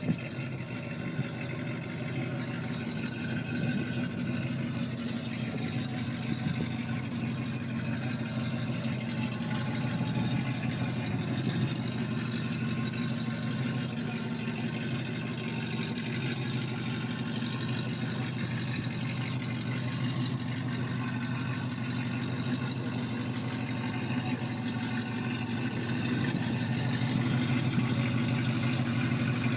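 The 1956 Chevrolet Bel Air's engine idling steadily, getting a little louder near the end.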